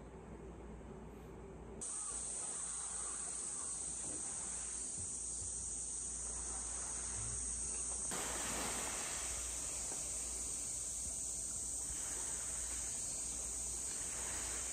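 Steady, high-pitched chorus of summer insects that starts abruptly about two seconds in, with an even higher layer joining about eight seconds in.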